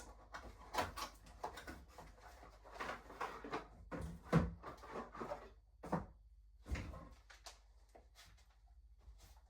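Irregular clicks, knocks and rattles of hard e-bike parts and tools being handled during assembly, with a few louder knocks in the middle. They die away about three-quarters of the way through.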